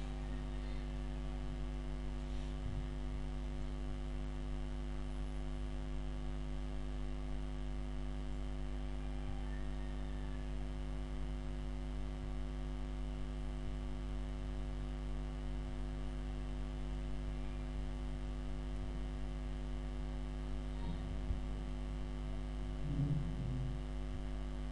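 Steady electrical mains hum, a low buzz with a stack of evenly spaced overtones that stays unchanged throughout.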